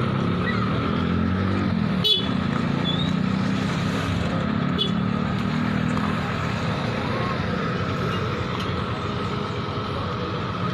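Hydraulic excavator's diesel engine running steadily, with a single sharp knock about two seconds in.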